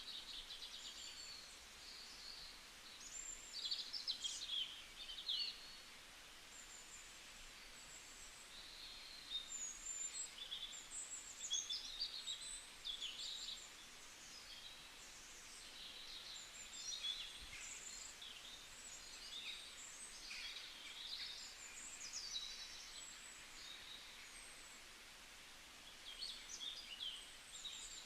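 Several songbirds singing and chirping in a forest, short high trills and calls coming every second or two over a faint steady background hiss.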